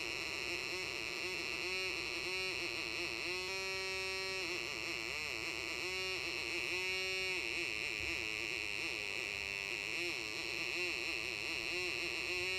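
Two-transistor multivibrator oscillator playing through a small 8-ohm speaker: a buzzy electronic tone whose pitch keeps wavering and bending, then holds steady for a moment, as the light on its light-dependent resistor changes. A steady high tone sits above it.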